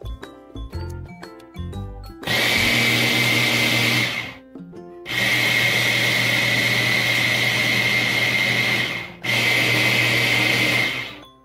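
Hand-blender motor on a mini chopper bowl, run in three bursts (about two, four and two seconds long, with short breaks between) while it purées blanched cauliflower. A steady high tone sits over the motor noise.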